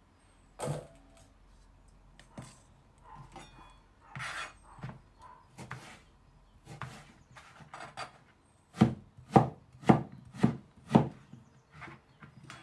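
Knife chopping aubergine (eggplant). A few scattered soft cuts are followed, in the second half, by a run of about six sharp chops roughly two a second.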